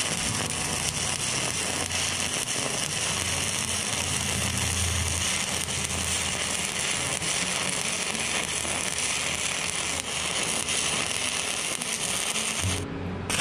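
Stick-welding arc of a Harbor Freight Vulcan 7018 electrode burning at about 85 amps: a steady, even crackle and sizzle as the bead is laid. The crackle breaks off briefly near the end.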